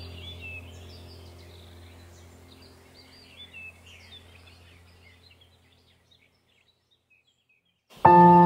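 Ambient background music with bird chirps and a low steady drone, fading out to silence about six seconds in. Near the end a new ambient track starts suddenly with ringing, bell-like held tones.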